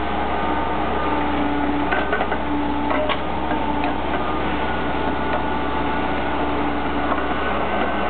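Atlas 1304 wheeled excavator's diesel engine and hydraulics running steadily, with a whine that comes and goes as the bucket tips soil into a tracked mini dumper. A few short knocks about two and three seconds in.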